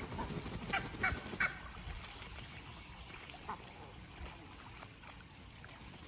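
Waterfowl calling at a pond: three short calls in quick succession about a second in, then a single fainter call a couple of seconds later.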